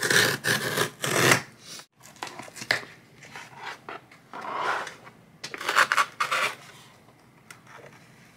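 Cardboard shipping box being cut and torn open by hand: scraping and ripping of cardboard and tape in several noisy bursts, loudest at the start and again about six seconds in, trailing off near the end.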